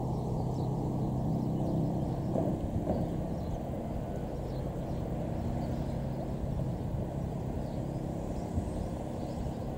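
Steady low drone of a vehicle engine with a constant hum, holding level with no change in pitch.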